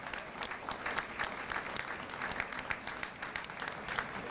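Audience applauding, with many hands clapping steadily.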